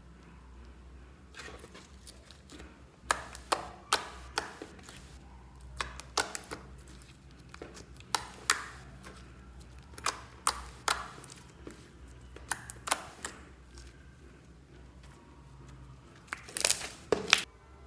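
Pink glitter slime being poked, squeezed and stretched by hand, giving off irregular sharp clicks and pops as trapped air bursts from the slime, with a quick run of the loudest pops near the end.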